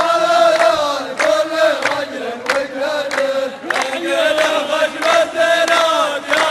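Voices chanting a long, drawn-out sung refrain of a Gulf Arabic mawwal, held on slowly bending notes, with sharp beats struck about twice a second.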